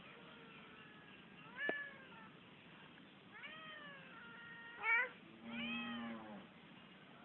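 Domestic cat meowing, about four short calls that rise and fall in pitch.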